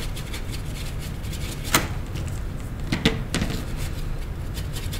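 A few sharp clicks and taps from handling paint tubes at the palette, three of them louder, over a steady low hum.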